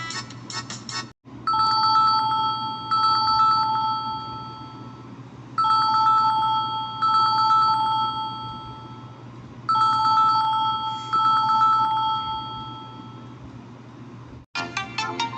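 Samsung phone ringtone imitating an old telephone bell: a trilling two-pitch ring that comes in pairs of short bursts, each pair fading away, repeated three times about four seconds apart. It is preceded by the last second of a quick melodic ringtone, and another melodic ringtone starts near the end.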